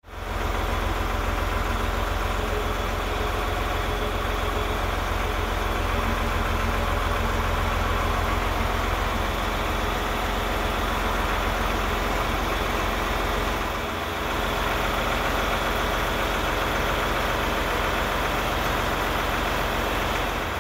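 John Deere tractor engine idling steadily.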